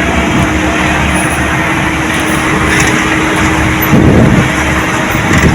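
Heavy diesel earthmoving machinery running steadily, with a brief louder rumble about four seconds in.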